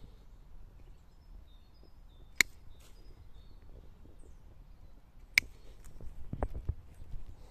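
Hand pruning shears snipping twice, about three seconds apart: two sharp clicks as small shoots are cut off a young olive sapling's trunk. A few dull low knocks follow near the end.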